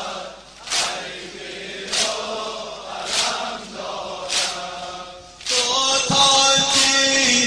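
Male voices chanting a Muharram lament (noha), with a sharp beat about every 1.2 seconds. About five and a half seconds in, it gives way to a louder, fuller sung passage with held notes.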